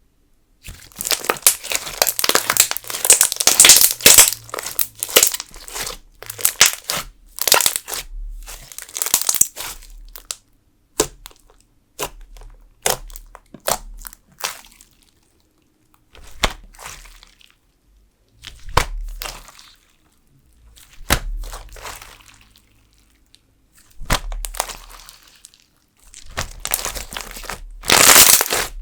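Jelly slime mixed with sugar beads being squeezed and worked in both hands, giving bursts of crunchy crackling with short pauses between squeezes.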